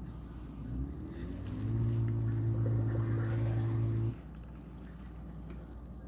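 KitchenAid dishwasher pump motor starting up, its hum rising in pitch for about a second, then running steadily for about two and a half seconds before cutting off abruptly.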